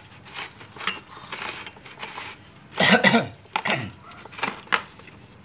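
Brass incense burner being scrubbed by hand with a cloth and salt-and-vinegar in a plastic basin: short rubbing strokes with metallic clinks and scrapes, and a louder burst of noise about three seconds in.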